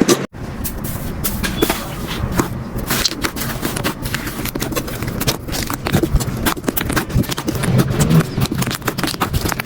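Hands squeezing and poking slime: a dense, irregular run of sticky clicks and pops.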